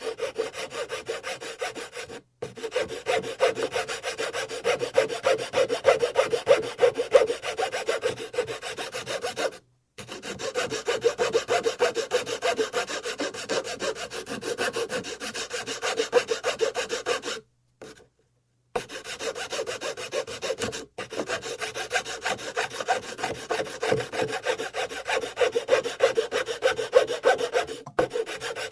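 A file or rasp worked back and forth on wood in fast, continuous strokes, giving a dry rasping scrape. It runs in long stretches, and the sound cuts out completely and abruptly several times before starting again.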